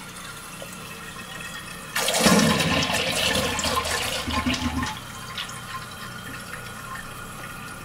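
Toilet flushing through its flapper valve: water running, then a sudden louder rush of draining water about two seconds in that lasts about three seconds, then settles to a quieter steady running of water as the tank refills.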